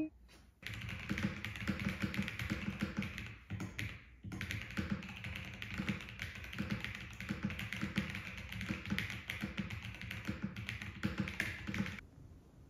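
Tenkeyless mechanical keyboard with cream keycaps typed on quickly in a continuous run of keystrokes, with a brief break about four seconds in, stopping near the end. The clacks carry some room echo.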